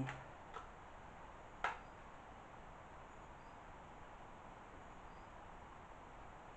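Quiet room tone, a steady faint hiss, with one sharp click about one and a half seconds in and a few faint, short high chirps later on.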